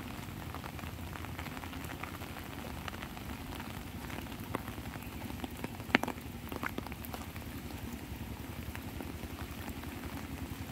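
Light rain pattering on an umbrella: many small drop taps over a steady hiss, with one sharp, louder tap about six seconds in.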